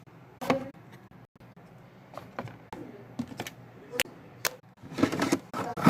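Small plastic toy pieces being handled and set down, a string of light clicks and taps that come closer together near the end.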